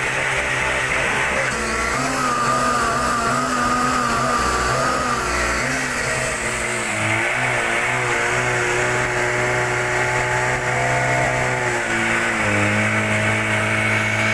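Small engine of a portable fire pump running steadily. Its pitch wavers and shifts about halfway through and again near the end as the engine speed changes.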